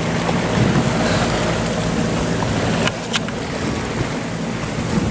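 Boat engine running steadily at low speed, a constant low hum under the rush of wind and water.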